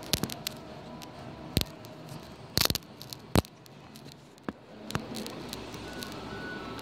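A few sharp clicks and taps, scattered and irregular, over a low background hiss. The loudest cluster comes around the middle.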